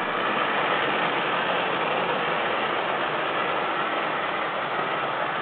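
Model train running along the layout's track: a steady rolling rumble of wheels on rail and the small motor, unchanging throughout.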